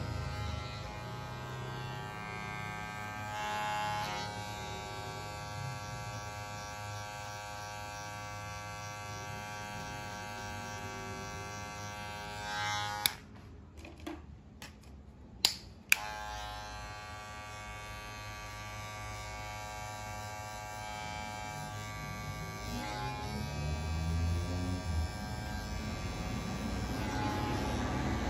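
Cordless hair clipper running with a steady electric buzz as it cuts short hair at the nape. About halfway through it stops with a sharp click, two more sharp clicks follow, and it starts buzzing again about three seconds later.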